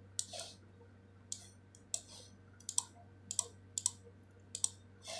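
Computer mouse clicking about a dozen times at uneven intervals, several clicks coming in quick pairs, over a faint low hum.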